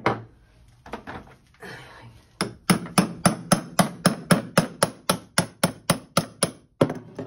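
Hammer tapping rapidly and evenly, about four strikes a second with a metallic ring, to drive a stuck plastic piece of a Brompton's rear suspension block off its threads. A couple of single knocks come first.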